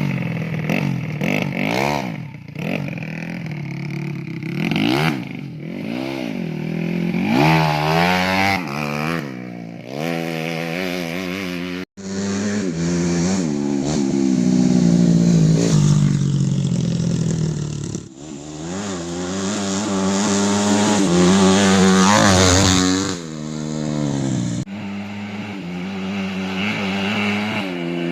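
Single-cylinder four-stroke engine of a Yamaha Jupiter moped bored out to 130cc for grasstrack, revved hard in quick rises and falls, then pulling in longer climbs that fall away again.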